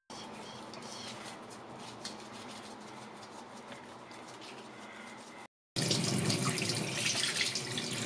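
Water running from a bathroom tap into a sink as a child's hands are washed under it: a steady splashing hiss that cuts out briefly about five and a half seconds in, then comes back louder.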